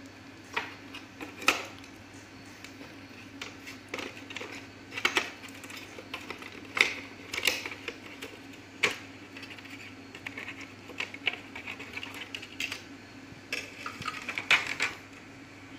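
Irregular clicks, taps and knocks of hands handling the opened projector's plastic housing, wire connectors and circuit board during disassembly, over a steady low hum.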